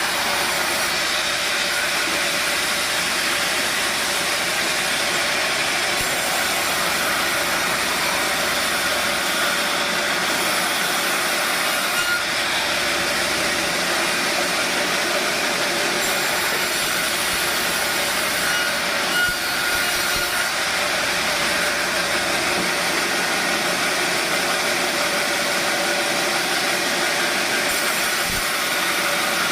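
Sawmill running steadily, its saw cutting through logs with a continuous, even machine noise.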